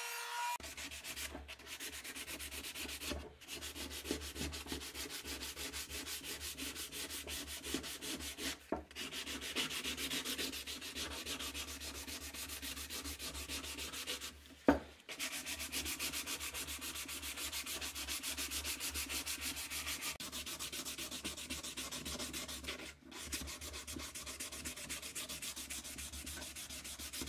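Wooden knife handle being hand-sanded with sandpaper: quick back-and-forth rubbing strokes, broken by a few short pauses and one sharp knock about halfway through.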